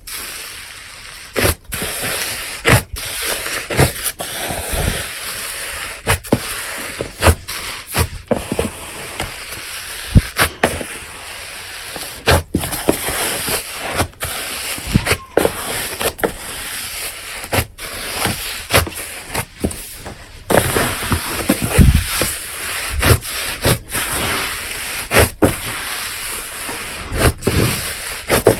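A large batch of slime being kneaded by hand: continuous squishing and rubbing with frequent sharp pops.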